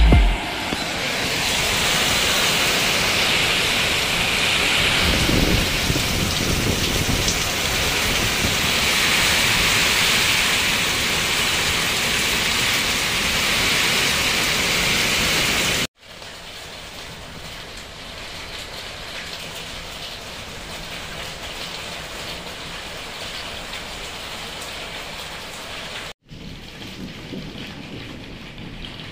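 Heavy thunderstorm rain pouring down steadily, with a low rumble about five seconds in. After a cut about sixteen seconds in, the rain is lighter and much quieter.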